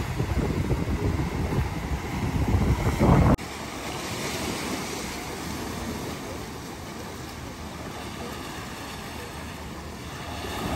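Wind buffeting the microphone, which cuts off suddenly about three seconds in. A steady, even rush of sea surf and wind follows.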